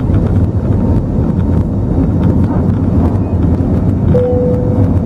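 Cabin noise of an Airbus A320neo climbing out just after take-off: a steady low rumble of its Pratt & Whitney PW1100G geared turbofans at climb power, mixed with airflow noise. A short steady tone sounds near the end.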